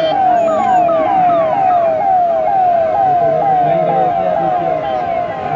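Vehicle siren on a car in a slow convoy, sounding a repeating falling tone a couple of times a second, with a second, higher siren joining in the first half.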